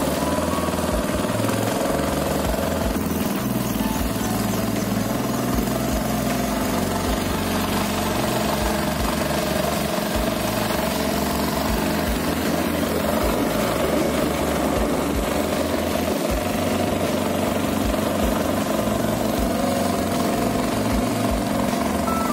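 Engine of a narrow wooden longtail boat running steadily under way, a constant unbroken drone.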